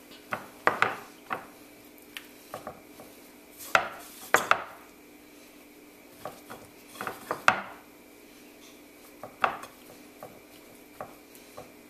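Whole red snapper being dredged in flour on a plate: irregular knocks and taps as the fish and fingers strike the plate, with soft rubbing between them, while the excess flour is dusted off.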